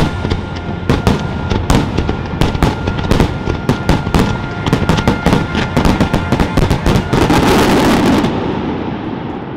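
Fireworks display: a rapid barrage of bangs and booms, swelling into a dense crackling burst about seven to eight seconds in, then fading away.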